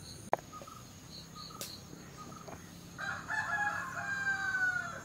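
A sharp click about a third of a second in. Then, about three seconds in, a rooster crows once: one drawn-out call of about two seconds that dips slightly at its end.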